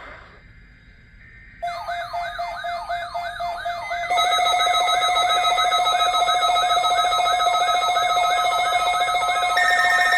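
Electronic siren-style alarm tones: a rapidly repeating rising sweep, about four a second, that starts about a second and a half in. About four seconds in, a steady tone and a harsh buzz are layered on top and the sound gets louder, and another higher tone joins near the end.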